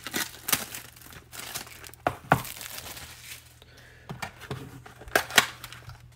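Clear plastic shrink wrap being torn and crinkled off a trading-card box, in irregular crackling tears, loudest about two seconds in and again near the end.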